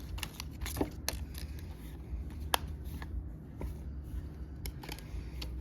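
Pokémon card booster pack being opened by hand: foil wrapper crinkling and cards being slid and handled, heard as scattered sharp crackles and ticks, the sharpest about two and a half seconds in.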